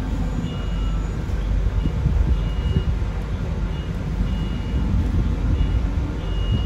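Running sound inside a Sunwin SWB6127EV electric bus on the move: a steady low rumble from the road and body, with short high beeps recurring about once a second.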